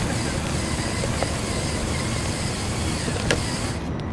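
Drivetrain of a LEGO Technic RC car, two Power Functions L-motors and plastic gears, whirring steadily as it drives over dirt and grass, heard from a camera mounted on the car. A couple of sharp clicks, the louder one about three seconds in.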